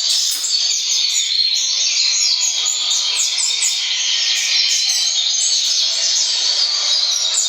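Double-collared seedeaters (coleiros) singing a fast, continuous twittering song: a caged bird singing hard against a played recording of tournament coleiro song.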